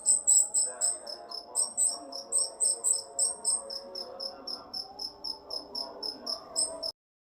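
Rio-rio bird song as used for masteran: a rapid run of short, high chirps, about four a second, over a softer warbling layer. It cuts off suddenly near the end.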